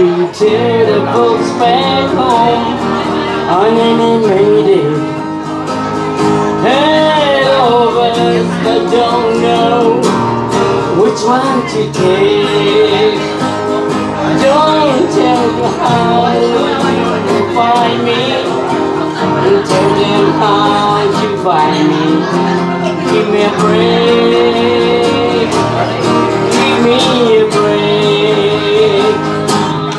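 Small live band playing a soft-rock song: strummed acoustic guitars under a wavering melody line.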